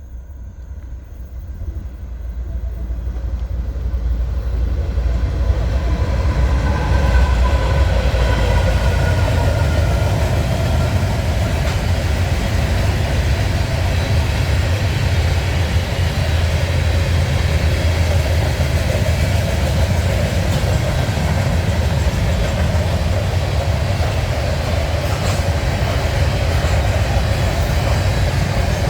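Norfolk Southern freight train passing close by: the rumble of the train and its rolling cars grows over the first few seconds, then holds loud and steady.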